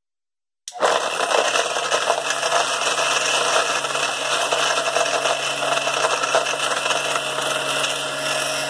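Vitamix blender with its dry container grinding whole graham cracker sheets into fine crumbs. The motor starts suddenly about a second in and then runs steadily, with a low hum under the grinding.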